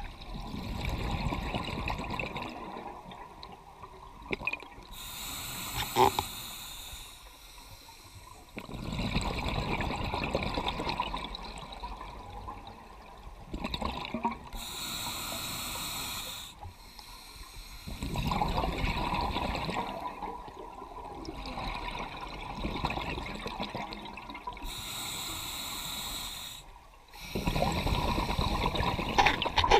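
Scuba diver breathing through a regulator underwater: a short hissing inhalation from the demand valve, then a longer rumbling exhalation of bubbles, about three breaths, slow and regular.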